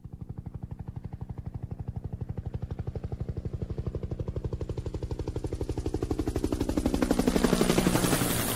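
Helicopter rotor beating in fast, even pulses, growing steadily louder as it approaches; near the end the pitch drops as it passes close by.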